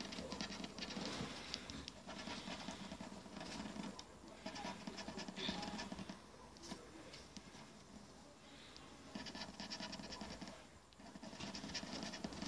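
A coin scraping the coating off a scratch-off lottery ticket, in several bursts of rapid scratching with short pauses between.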